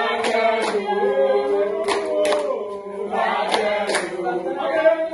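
A group of people singing a chant-like song together, with hand claps falling in pairs about every second and a half.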